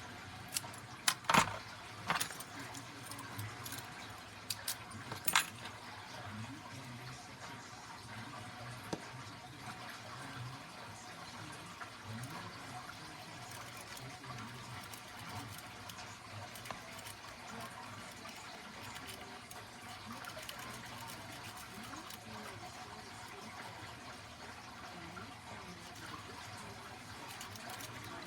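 Metal clinks and clanks from handling a brass deadbolt and picking tools, loudest in a cluster a few seconds in. After that comes quieter, ongoing picking of a deadbolt cylinder: faint scrapes and small clicks over a steady low hum.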